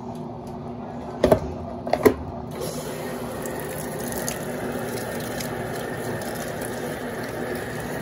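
Brastemp top-load washing machine pouring rinse water from its dispenser into the drum, a steady splashing hiss that grows brighter about two and a half seconds in, with two sharp knocks just before. The basket stands still while the water runs in, which the owner complains about.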